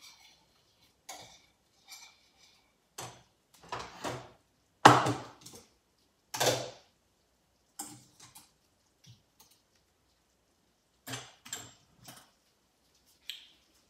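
Scattered knocks and clinks of metal cookware: a spoon striking a stainless steel saucepan and pots being handled on the stovetop. The two loudest clatters come about five and six and a half seconds in.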